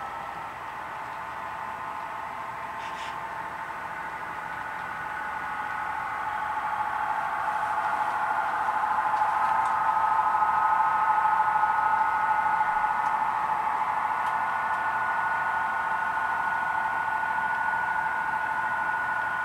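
Model freight train running on the layout track: a steady mechanical whine of several held tones, growing louder toward the middle as the cars roll past, then easing a little.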